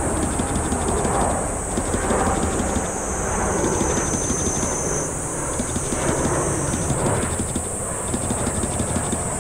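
Boeing 747-8F freighter's four GEnx-2B turbofan engines running at climb power, heard from the ground as a steady jet rumble that swells and eases gently every second or two. A steady high hiss runs alongside.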